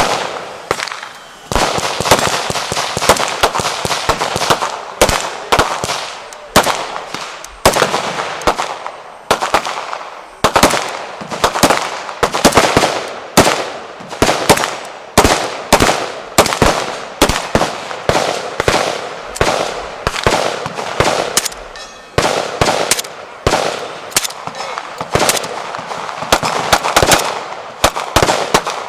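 Gunfire from firearms at a shooting range: a near-continuous string of loud shots, many close together, each with a ringing echo.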